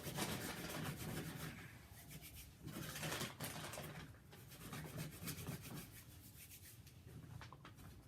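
Hands rubbing in chalk, a rubbing sound in quick repeated strokes that grows fainter after about four seconds.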